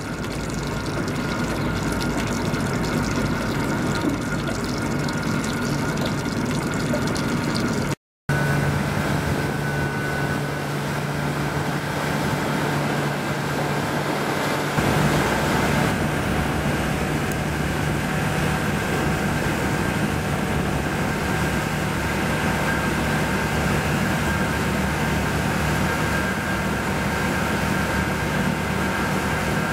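Steady drone of a boat's diesel engine mixed with rushing water and wind noise, heard from aboard a vessel running alongside. It drops out briefly about eight seconds in, then continues with a stronger low, even hum.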